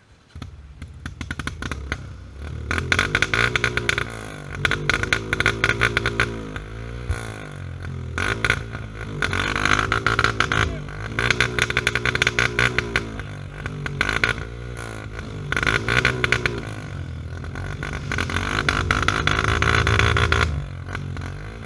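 Off-road motorcycle engine revving up and down repeatedly as the bike is ridden along a trail. It starts abruptly about half a second in.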